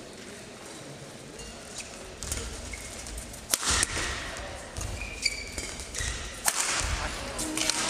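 Badminton racket strings striking a shuttlecock during a rally: sharp hits a second or more apart, the loudest about three and a half and six and a half seconds in. Short high squeaks of shoes on the court floor come between the hits.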